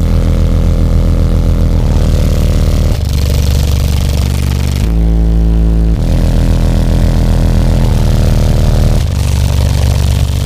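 Very loud bass music played through four Ampere Audio 15-inch subwoofers inside a truck cab, deep bass notes shifting pitch every second or two, with a distorted rattle riding on top of the bass.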